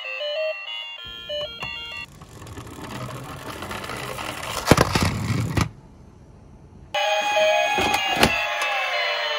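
Toy bus rolling down a wooden plank: a rough rumble of its wheels on the board that grows louder for a few seconds and ends in sharp knocks. Short electronic chime music plays before it and after a brief gap, with a couple of knocks of toy cars in a cardboard box.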